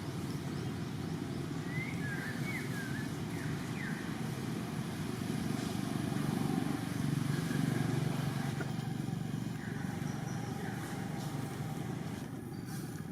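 Steady low rumble of outdoor background noise, swelling about six to eight seconds in, with a few faint short high chirps in the first few seconds.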